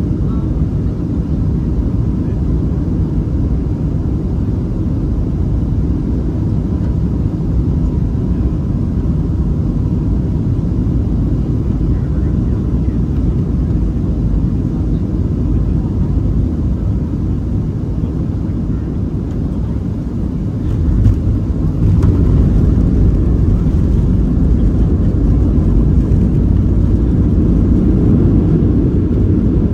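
Cabin noise inside a Boeing 737-700 on final approach: the steady rumble of its CFM56 engines and the airflow. About 21 seconds in comes a short jolt as the wheels touch down, and after it the rumble is louder as the jet rolls down the runway.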